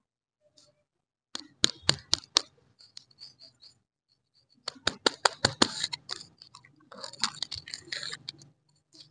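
Crinkly plastic lollipop wrapper being handled and peeled open, in three bursts of sharp crackles with quiet gaps between. The last burst, near the end, is the densest crackling.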